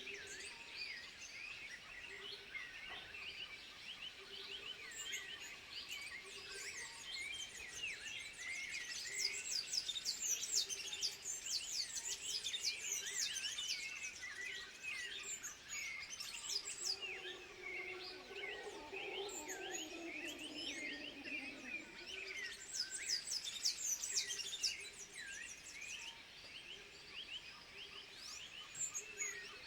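A dense chorus of animal calls: many quick high chirps and short whistles overlapping, with one lower call that slides down in pitch about two-thirds of the way through.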